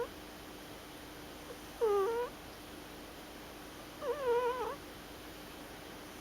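A cat snoring, each breath coming out as a short pitched, squeaky sound: two of them about two seconds apart, the second longer and wavering in pitch.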